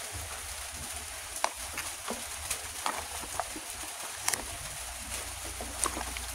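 Cardboard toy-car boxes with plastic windows being handled and opened: scattered light clicks and crinkles over a steady low hum and hiss.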